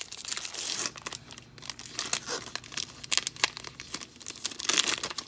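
A trading-card pack's foil wrapper being torn open and crinkled by hand, an irregular crisp crackling with louder bursts of tearing.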